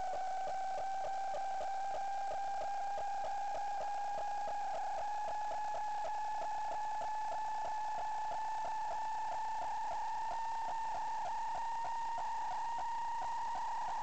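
A steady electronic whine with a rapid flutter, slowly rising in pitch, on the audio track of a sewer inspection camera recording.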